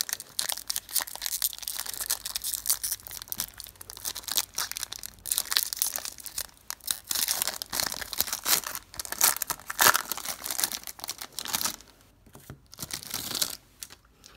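Wrapper of a 2015 Certified football card pack being torn open and crinkled by hand: a long run of crackling rips and rustles that thins out about twelve seconds in.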